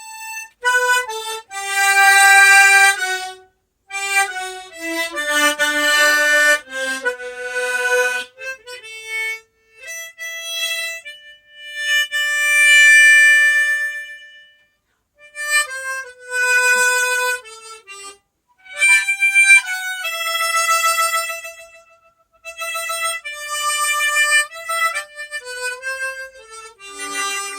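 G-key harmonica playing a slow single-note melody in phrases, with short pauses for breath between them.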